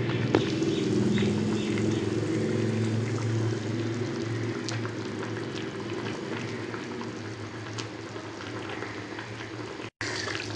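Pomfret curry gravy boiling in a wok, with small pops of bursting bubbles over a steady low hum. The sound cuts out briefly near the end.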